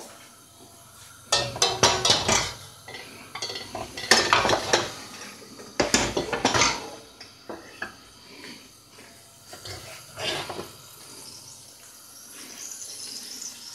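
Pots, pans and metal utensils clattering and clinking as cookware is handled, in four short bouts of clanking. A faint hiss builds near the end.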